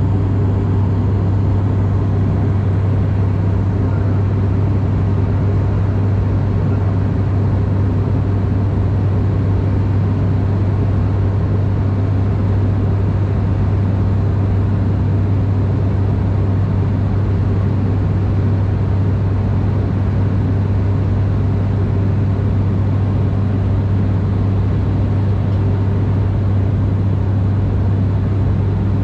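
ATR 42-600's turboprop engines and propellers droning steadily in flight, heard inside the passenger cabin: an even rushing noise with a strong, constant low hum from the propellers.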